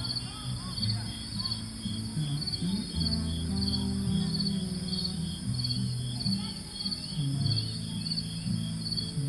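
Crickets chirping in an even rhythm, a little under two chirps a second, over a steady high insect hiss. Soft background music with low held notes plays underneath.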